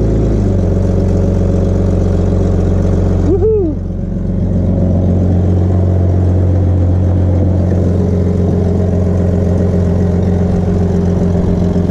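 Vehicle engine idling steadily, with a short rising-and-falling tone about three and a half seconds in.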